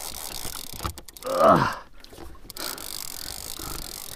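Two-speed conventional fishing reel being cranked steadily in low gear, winching a fish up from deep water. About a second and a half in comes one short groan that falls in pitch.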